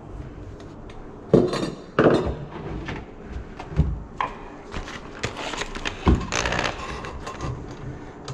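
Irregular metal clanks, knocks and scrapes as brass sink drain piping and a handheld drum drain auger are handled, with two sharp knocks standing out about a second and a half and two seconds in.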